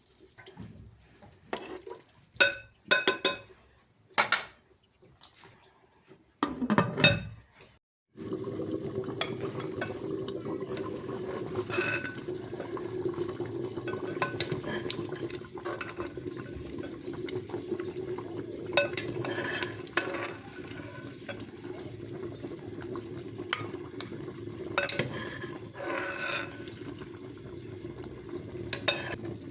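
Cooking sounds: a metal spoon and dishes clinking and knocking against a pot. About eight seconds in, the sound changes abruptly to a steady cooking hiss, with the spoon stirring and tapping in the pan now and then.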